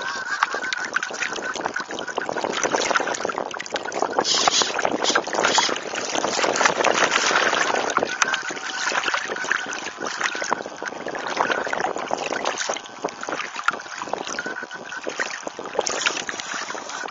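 Water rushing and splashing against the hull of a radio-controlled Mini 40 hydrofoil trimaran under sail, picked up close from a camera mounted on board, with wind buffeting the microphone.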